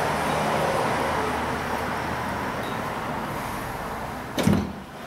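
Steady machine-like running noise with a low hum under it, and a single loud knock about four and a half seconds in.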